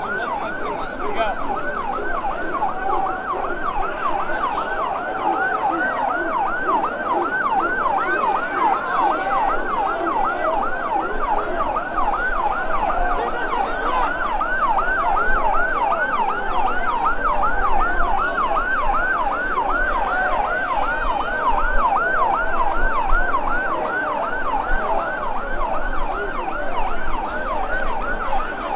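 Fire engine siren sounding a fast yelp, its pitch sweeping up and down about three times a second without a break.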